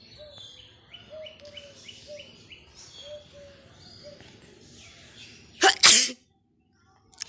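A person sneezing once, a loud two-part burst a little after halfway. Small birds chirp in the background before it, a short call repeated about twice a second.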